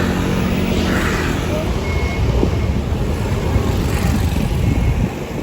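Large bus engine running with a steady low rumble. A short, faint high beep sounds twice, a few seconds apart.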